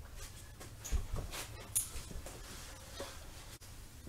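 A steel wheel and tire being pulled off the hub of a drum-brake rear axle and set aside, with a couple of dull thumps about a second in and lighter clicks and scrapes after.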